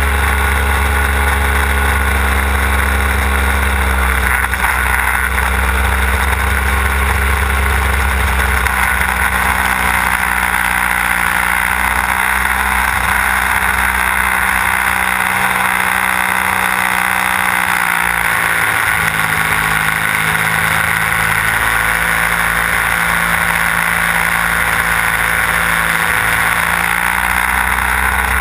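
Desert Aircraft DA-150 twin-cylinder two-stroke gas engine and propeller of a large-scale RC aerobatic plane, heard from the on-board camera with steady wind rush. It runs strongly at first; its deep note eases off about halfway through, and the pitch starts to rise again at the very end.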